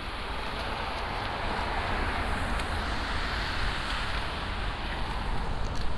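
A car driving past on a snowy street, its tyres hissing; the noise swells to a peak about halfway through and fades again.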